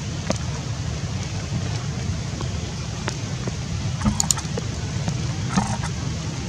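A steady low outdoor rumble carries a few faint clicks. Two short crackling flurries come about four and five and a half seconds in, as a macaque bites and chews kernels off a corn cob.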